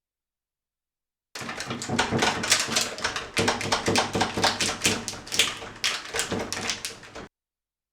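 Rapid, irregular clicking and rattling of a door latch being worked open with a thin plastic sheet slipped against the bolt, starting about a second and a half in and cutting off abruptly near the end.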